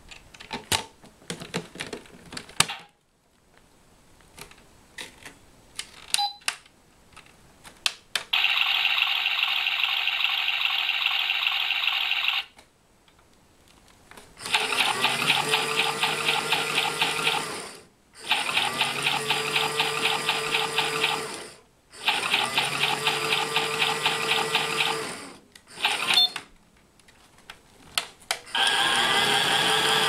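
Battery-powered toy washing machine playing its electronic washing-machine sound effects through a small speaker. A few plastic clicks of its door come first, then a steady electronic tone lasting about four seconds, then three bursts of a fast pulsing whir a few seconds each, and another starting near the end.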